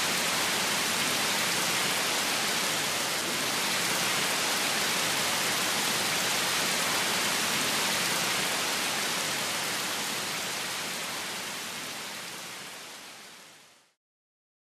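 Steady, even rush of water, like heavy rain or a cascade of falling water, fading out gradually over the last few seconds into silence.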